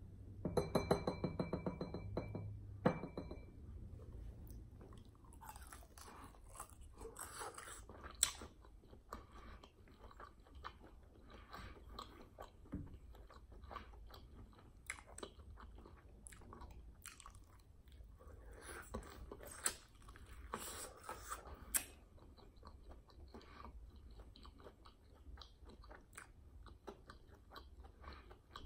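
Close-miked chewing and biting into crispy fried chicken wings, with crunches and wet mouth sounds scattered throughout. There is a brief hummed, pitched sound near the start.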